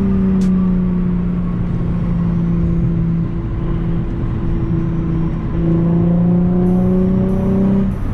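Nissan 350Z's 3.5-litre V6 through a Tomei exhaust, heard from inside the cabin while driving: a steady drone whose pitch sags slightly and eases off a few seconds in, then climbs again in pitch and loudness about halfway through as the engine pulls harder.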